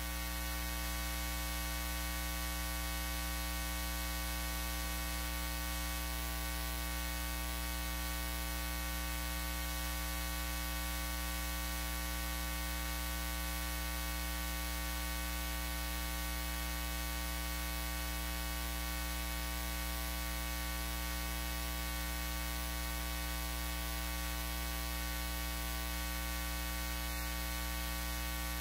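Steady electrical mains hum with a buzzy edge and a hiss over it.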